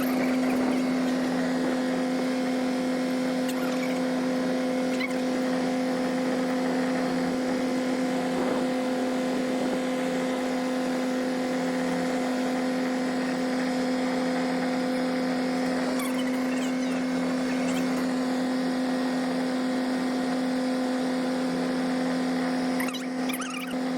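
A boat engine's steady, even drone, holding one pitch throughout, with a faint wash of noise beneath it.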